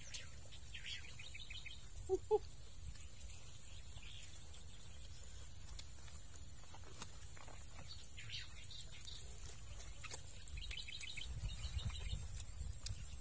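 Faint birds chirping in short bursts several times, over a low outdoor rumble. Two brief louder sounds come about two seconds in.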